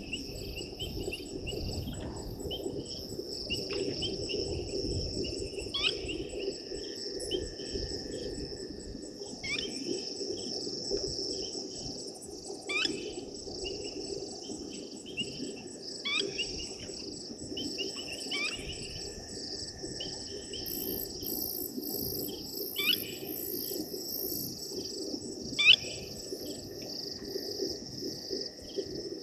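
Repeated short bird calls, each a quick falling note, coming about every two to three seconds with the loudest near the end, over a steady high-pitched chorus of crickets.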